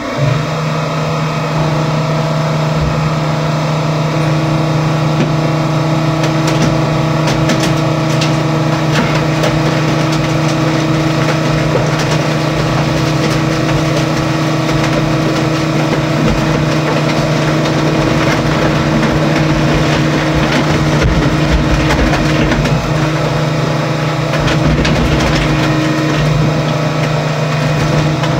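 Heavy equipment engine stepping up to a steady high-speed run under load right at the start and holding it, with scattered short metal knocks and crunches over it.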